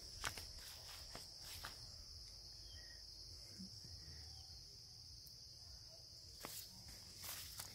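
Faint, steady high-pitched chirring of insects such as crickets, with a few light footsteps or clicks near the start and again near the end.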